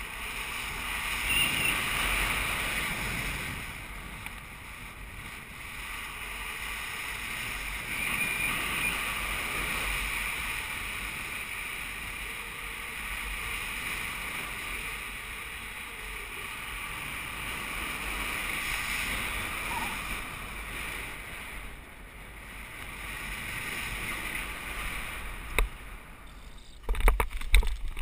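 Wind rushing over the microphone of a paraglider pilot's camera in flight, swelling and fading in gusts. Near the end come a few sharp knocks as the pilot skims low over the ground to land.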